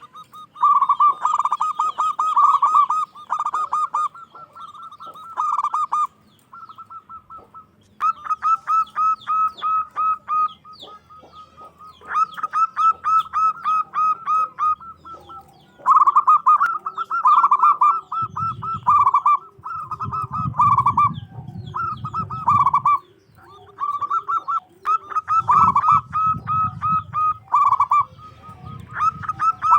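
Zebra dove (perkutut) calling in bursts of rapid, staccato cooing notes, again and again with short pauses between. In the second half a lower-pitched run of repeated notes joins in under it.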